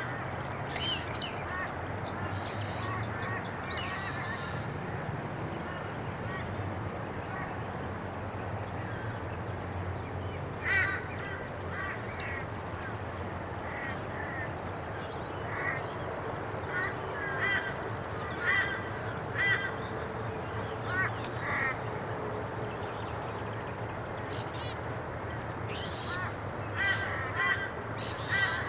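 Birds calling in short runs of quick repeated notes, again and again, over a steady low hum.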